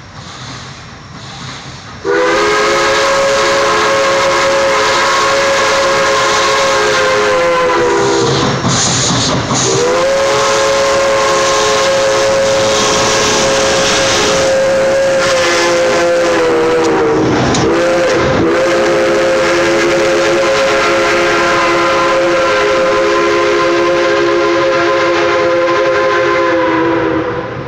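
CNJ 113 steam locomotive's chime whistle blowing several notes together, very loud and long as the locomotive passes close by. Twice it sags in pitch and breaks off for a moment, once about a third of the way in and again about two-thirds of the way, then it resumes. Steam hiss and the running train lie under it.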